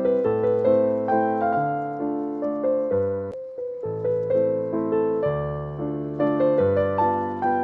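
Background piano music: a gentle melody of struck notes over chords, each note fading after it is played.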